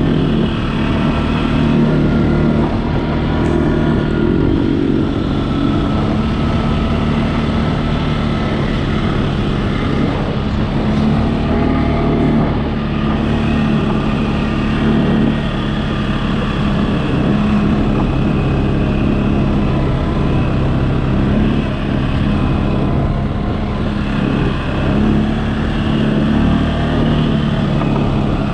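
CFMOTO ATV engine running under way at a fairly steady speed, its pitch rising and falling slightly with the throttle.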